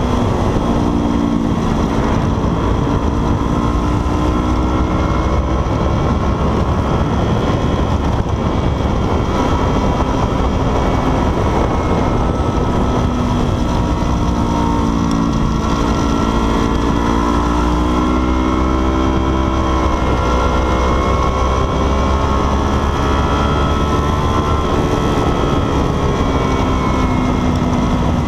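Motorcycle engine at speed, its revs repeatedly climbing and dropping through gear changes and corners, over heavy wind rush on the onboard microphone.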